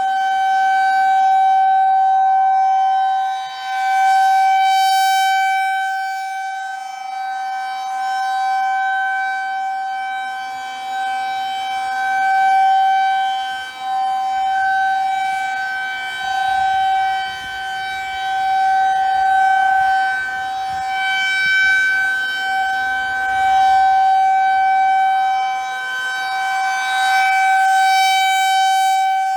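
Federal Signal 2001 rotating tornado siren sounding its monthly test as one steady tone that neither rises nor falls. Its loudness swells and fades every several seconds as the rotating head turns toward and away.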